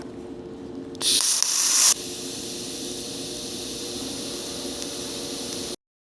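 A loud hiss lasting about a second, then a steadier, quieter hiss over a low hum, which cuts off abruptly near the end.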